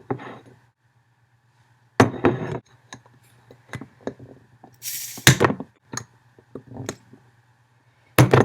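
Crown cap of a glass soda bottle being pried at with a metal ring: irregular sharp clicks and knocks of metal against the cap and glass, loudest about two seconds in and near the end, with a short scraping rasp about halfway.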